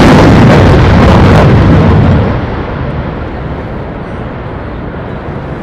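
Lockheed Martin F-35C's single Pratt & Whitney F135 jet engine in afterburner, very loud. About two seconds in it drops sharply and loses its high end as the jet pulls away, leaving a duller, quieter rumble.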